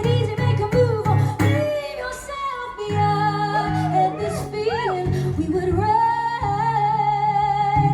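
A woman singing live over a strummed guitar: a few quick strums at first, then long held sung notes that bend up and down, without clear words.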